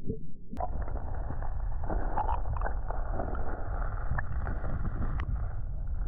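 Creek water heard through a camera held underwater: a muffled, steady rumble with irregular gurgles and small knocks. A sharp click comes a little over half a second in, after which the sound is brighter.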